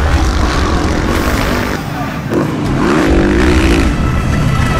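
Motocross dirt bike engine revving, its pitch rising and falling as the throttle is worked.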